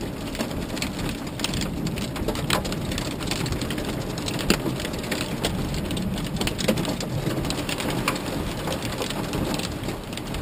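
Heavy storm rain pelting a car's roof and windshield, heard from inside the car: a dense, steady patter full of sharp individual drop hits, over a low steady rumble.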